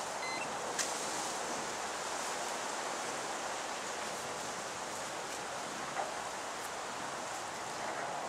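Steady rustling hiss of wind through reeds and bankside vegetation, with a faint click about a second in and another near six seconds.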